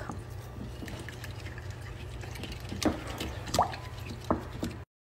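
Small coil whisk beating a thick cream-and-cheese mixture in a glass bowl: wet, sloppy stirring with three sharp clicks of the whisk about three to four seconds in. The sound cuts off abruptly near the end.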